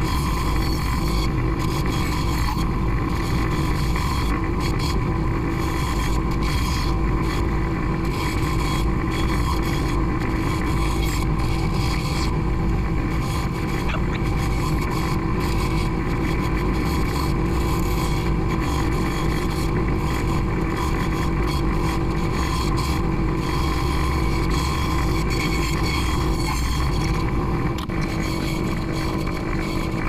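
Delta benchtop bandsaw running steadily, its blade cutting through a stack of six plywood sheets.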